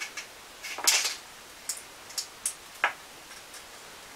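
A few scattered light clicks and rustles, the strongest about a second in: things being handled and moved around.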